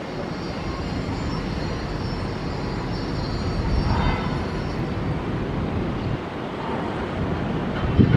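Jet airliner engines rumbling, with a high turbine whine that fades away about halfway through. A short low thump near the end.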